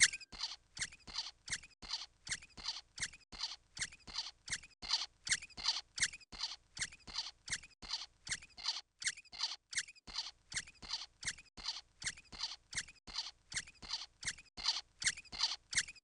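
Looped cartoon footstep sound effect: short, scratchy, slightly squeaky steps for a sandalled character walking in place, about three a second.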